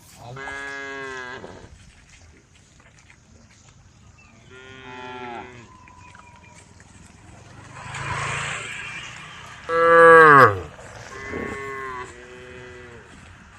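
Cattle mooing: about five separate moos, each sliding down in pitch at the end, the loudest about ten seconds in. A short rushing noise comes about eight seconds in.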